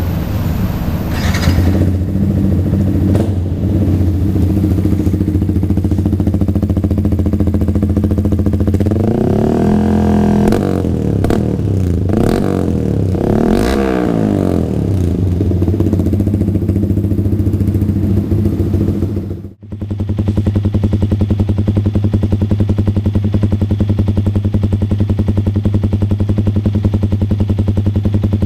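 Yamaha R15 V3's 155 cc single-cylinder engine idling through an R9 GPX-SS full-system aftermarket exhaust, revved up and down three times in quick succession about a third of the way in. After a brief break about two-thirds of the way in, it settles back to a steady idle.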